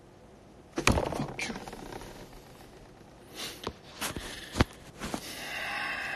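A sharp knock about a second in, followed by rustling and several more short clicks and knocks, then a faint humming tone near the end.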